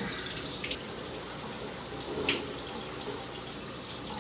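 Shower running steadily, the spray of water falling in a small bathroom, with one short sharp click a little over two seconds in.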